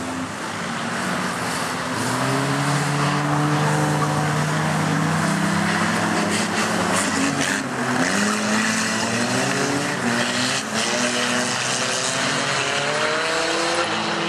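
Small four-cylinder engines of Nissan Micra banger race cars revving hard as they accelerate round the track. One engine note climbs steadily for several seconds, then several engines rise in pitch over one another.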